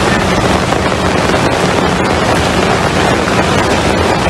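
Steady loud rushing of fast-flowing floodwater, with a low steady hum underneath from a CC206 diesel locomotive idling while stopped at the flood.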